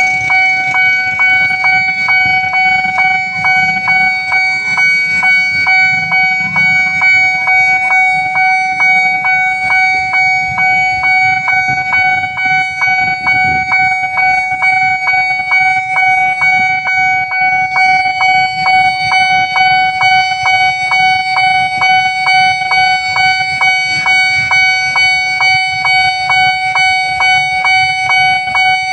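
Railway level-crossing warning alarm sounding continuously: one steady electronic tone that pulses about twice a second. A low rumble runs underneath.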